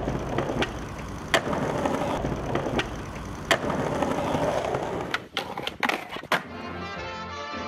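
Skateboard wheels rolling over rough pavement, with sharp clacks of the board popping and landing about a second and a half in and again about three and a half seconds in. A little past five seconds comes a quick run of clacks as the board hits a ledge, and brass-led music starts near the end.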